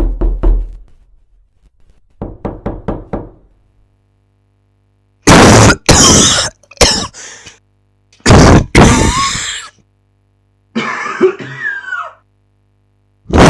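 A person coughing: a quick run of short, softer sounds at first, then loud, harsh coughs in several separate bouts, one of them throatier with some throat clearing.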